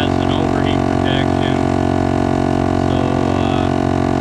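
All Top 150 psi onboard air compressor running steadily under load while inflating a large off-road tire: a constant, even drone.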